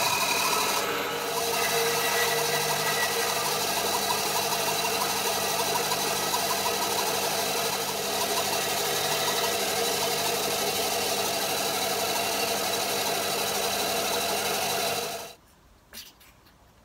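Rexon BS10SA bandsaw running steadily, its blade cutting the corners off a small maple block. The sound stops suddenly about fifteen seconds in, followed by a single faint tick.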